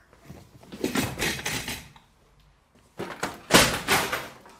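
Clattering knocks and thuds of objects being shoved and banged on a wooden table, in two bursts, the second louder.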